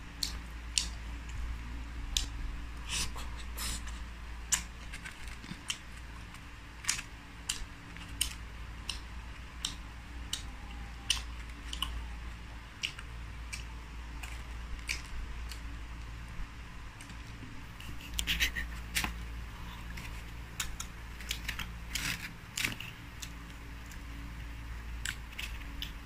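Crisp, irregular cracks and clicks of crunchy deep-fried small birds being torn apart by hand, with a steady low hum underneath.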